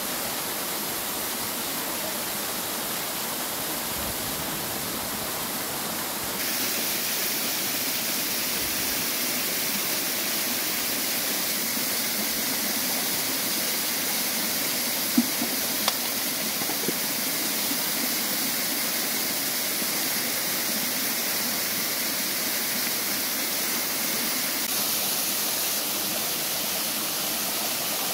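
Steady rush of running water, getting a little louder and brighter about six seconds in, with a few light knocks near the middle.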